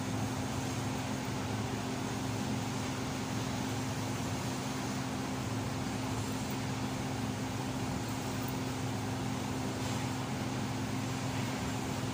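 TIG welder running: a steady electrical hum with an even hiss over it, unbroken throughout.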